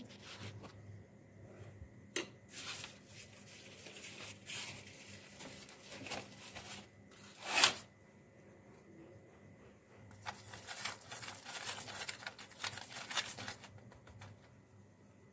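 Irregular soft scraping and rustling as a spoon spreads oil over chapatis and the flatbreads are handled on a plate, with a few light clicks and one louder scrape about halfway through.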